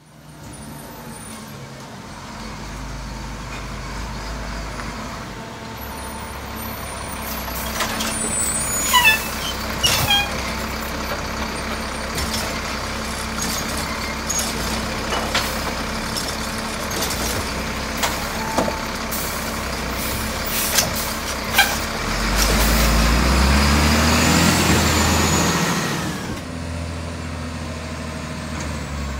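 Diesel garbage truck running, with sharp clanks and short high squeaks about eight to ten seconds in. About three quarters of the way through it runs louder for around four seconds, then settles back.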